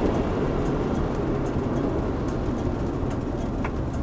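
Steady road and engine noise inside a camper van's cab while driving on a highway.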